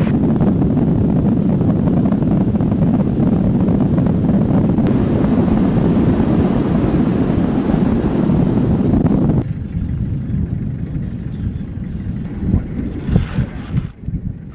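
Vehicle driving fast over desert ground, mostly heard as heavy wind rumble on the microphone. About nine seconds in it drops to a quieter, gusty rumble with a few irregular thumps.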